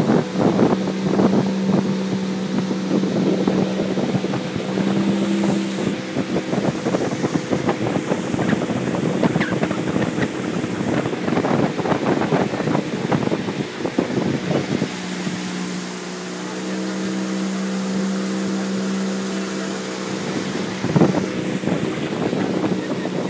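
Outboard motor of a small open boat running steadily at speed, a constant hum that sinks under the noise for a stretch in the middle, with heavy wind buffeting the microphone.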